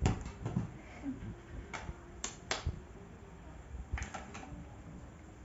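Scattered sharp taps and clicks from a child handling toys: hands slapping a rubber football, then plastic toys knocking together when he reaches into the pile about four seconds in.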